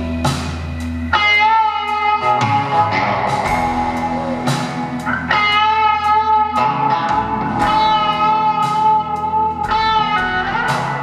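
Live rock band playing an instrumental break without vocals: an electric guitar lead holds long notes, changing every second or two, over the rest of the band.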